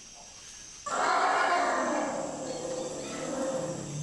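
Bornean pygmy elephant calling: a loud call that starts suddenly about a second in and fades over about three seconds, followed by a low rumble near the end. Insects drone steadily behind it.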